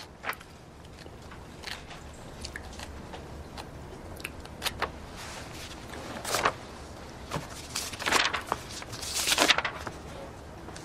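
Pages of a large book being leafed through by hand: a string of irregular paper rustles and flicks, louder in the second half.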